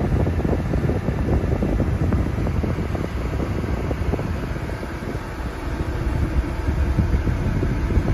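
Air buffeting the microphone: a steady low rumble with irregular crackle, dipping slightly in the middle.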